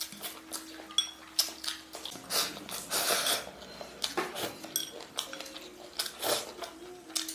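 Utensils knocking and clinking against dishes: a string of short, irregular clicks, with some brief rustling noise partway through.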